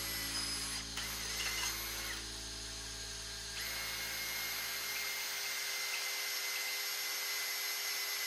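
Cordless drill running under load, boring holes in a stainless steel plate, with a steady high whine. The deeper hum underneath drops away about five and a half seconds in.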